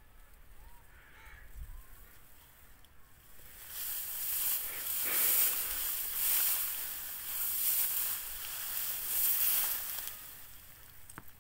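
A loud, airy hiss that swells and fades in several waves for about six seconds, starting a few seconds in after a quiet stretch with faint bird chirps.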